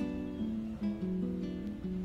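Background music: an acoustic guitar playing a steady run of plucked notes and chords.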